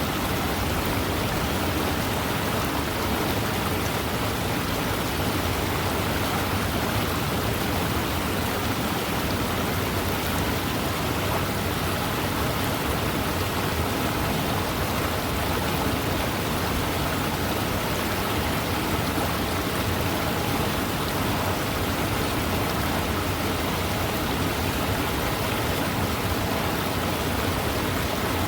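Waterfall: a steady, unbroken rush of falling water with no change in level.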